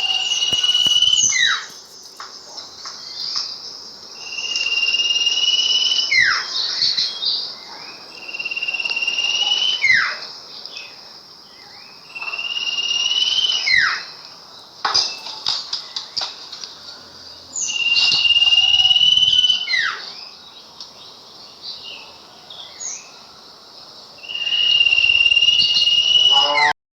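Sirpu songbird singing in repeated phrases. Each phrase is a held high whistle under a buzzy, insect-like trill, followed by quick, sharp downward-swept notes, and comes back about every four seconds.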